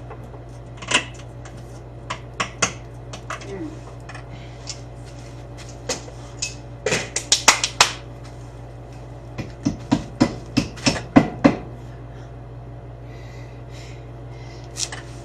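Hand tools clicking and clinking against metal: scattered sharp taps, with two quick runs of clicks in the middle, over a steady low hum.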